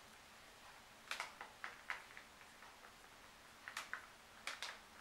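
Faint, scattered clicks and ticks from gloved hands handling and tilting a paint-covered vinyl record, in small clusters about a second in and again near the end.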